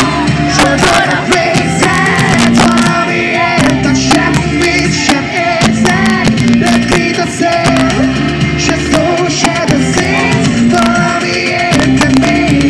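Live amplified band music with drums and a male singer singing into a microphone, heard from the audience in front of the stage.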